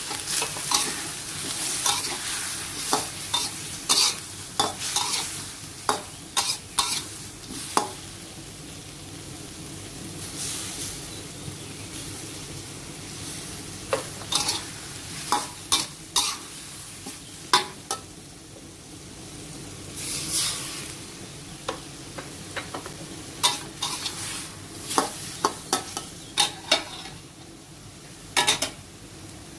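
Angled gourd and egg sizzling in a little water in an aluminium wok, while a metal spatula scrapes and knocks against the wok in spells of stirring with short pauses between.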